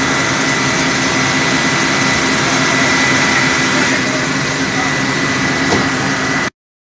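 Fire trucks' engines running steadily under a loud, even hiss from fire hoses spraying the burning wreck. The sound cuts off suddenly near the end.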